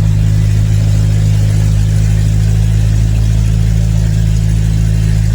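Turbocharged VW AP 1.9 four-cylinder engine with a Holset HX40 turbo and 350T camshaft, running at a steady speed with a constant deep drone and no revving.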